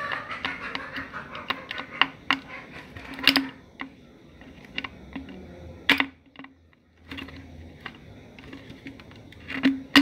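Irregular clicks, taps and scraping of plastic as a knife works the ring off the neck of a plastic bottle. There is a dense scratchy stretch at the start and a few sharper clicks later.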